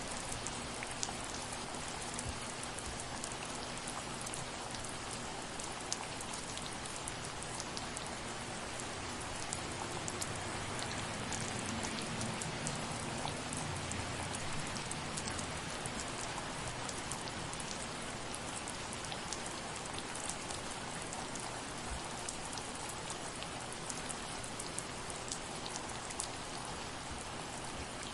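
Light rain falling steadily on a surface: an even hiss scattered with many small drop ticks and the odd louder drip.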